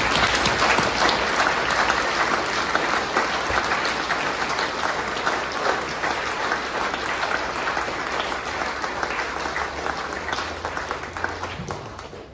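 Audience applauding: many hands clapping in a dense patter that slowly thins and fades out near the end.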